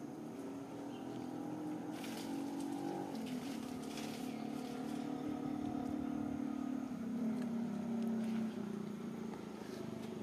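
A motor engine running steadily, its pitch dropping slightly about three seconds in and again about seven seconds in, with a few faint clicks over it.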